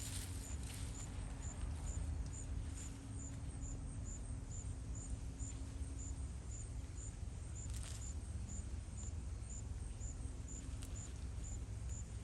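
Low outdoor rumble with a faint high ticking about twice a second throughout, and a couple of brief rustles or scrapes, about a second in and again near eight seconds.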